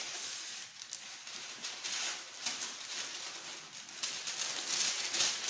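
Baking paper rustling and crinkling as a sheet is pulled out of its box, with uneven rustles that grow louder near the end.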